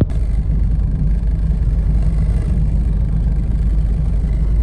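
Steady low cabin rumble of a 2003 Ford Escape driving at about 40 km/h on light throttle, the speed and load at which the owner says the whole car shakes.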